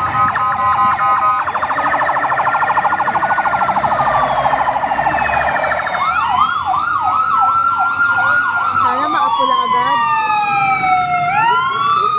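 Several emergency vehicle sirens sounding at once. A rapid warble runs until about halfway, then a fast yelp takes over, and near the end more than one slow rising-and-falling wail overlap.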